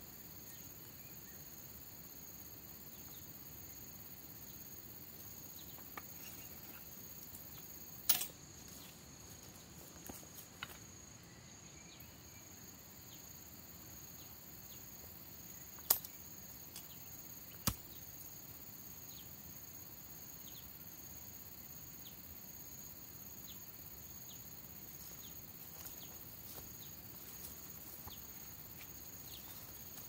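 Steady high-pitched drone of insects in the surrounding vegetation, with a few sharp snaps or clicks, the loudest about halfway through.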